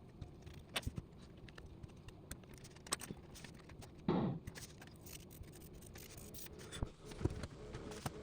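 Faint scattered clicks and light scrapes, like small objects being handled, with one short, louder thud about four seconds in.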